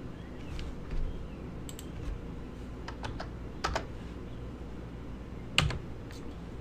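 Computer keyboard keys clicking in a few scattered presses, the loudest about five and a half seconds in, over a low steady hum.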